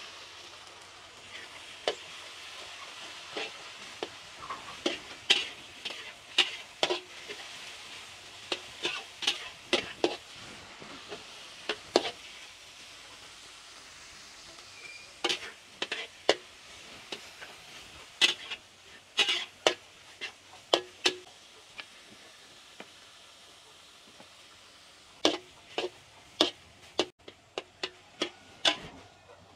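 Food sizzling in a hot pan while it is stirred, with a metal utensil knocking and scraping against the pan in sharp clicks throughout. The sizzle is strongest in the first half and fainter after.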